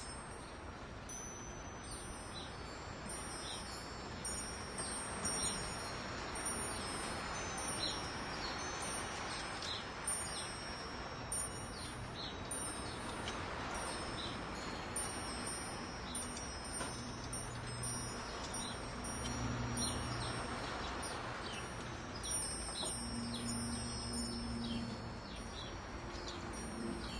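Wind chimes ringing, many overlapping high tones struck at irregular moments, over a steady soft hiss. A faint low hum comes in about two-thirds of the way through.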